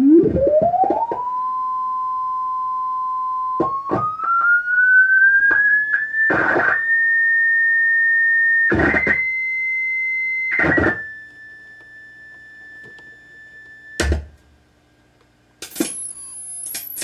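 A pure sine-wave test tone from a signal generator, played through the amplifier. It glides up from a low pitch to about 1 kHz and holds, then climbs and steps to around 2 kHz, with a few short bursts of scratchy noise along the way. It cuts off with a click about 14 seconds in, and a piercing tone of about 12 kHz starts near the end.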